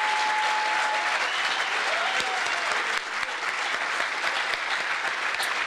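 Audience in a banquet hall applauding: many hands clapping together in a steady patter that eases slightly about three seconds in.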